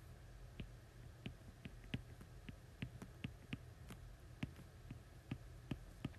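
Faint, irregular clicks of a stylus tapping on a tablet screen while handwriting math symbols, two or three a second, over a low steady hum.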